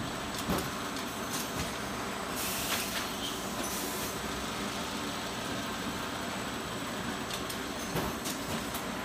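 Shrink-wrap bundling line running: steady blower and conveyor noise from the heat shrink tunnel, with a few light knocks and a brief hiss about two and a half seconds in.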